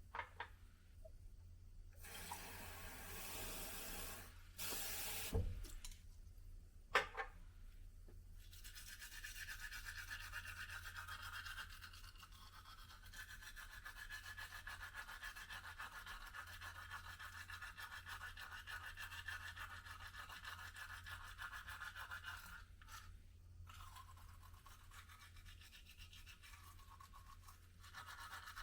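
A small electric motor buzzing steadily, starting about 8 seconds in and briefly stopping near 23 seconds, after a few hissing bursts and clicks.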